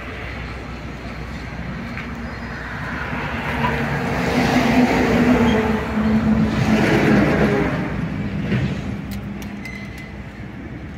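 A motor vehicle passing by on the road: its engine and tyre sound swells over a few seconds and fades again, over steady traffic noise.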